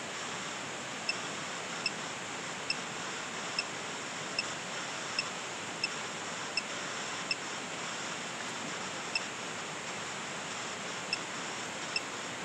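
Steady rushing of a waterfall. Short high beeps repeat over it, mostly about every three-quarters of a second.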